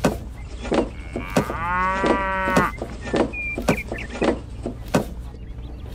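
A cow moos once, a single drawn-out call of about a second that rises and falls in pitch. Around it, irregular sharp clicks and knocks of plastic toy fruit being set down in a plastic model trailer.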